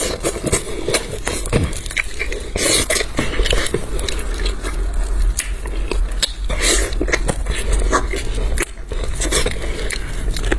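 A person chewing and biting food close to the microphone: wet chewing with many short crisp crackles and clicks, and now and then a light scrape.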